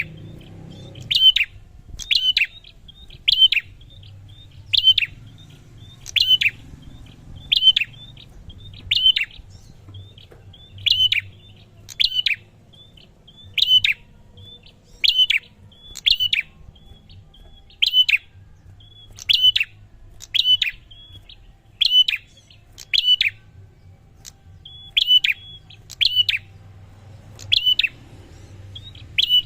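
Prinia (prenjak) calling over and over: a loud, sharp note about once a second, with softer short chirps in between.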